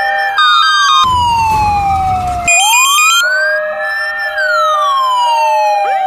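Ambulance siren sound effect wailing, its pitch sweeping slowly up and then down over about four seconds, with a second two-tone siren stepping between two pitches underneath. A low rumble joins in for about a second and a half near the middle.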